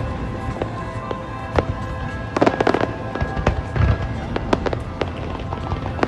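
Fireworks going off: low booms and sharp cracks in irregular clusters, the densest about halfway through, with music playing throughout.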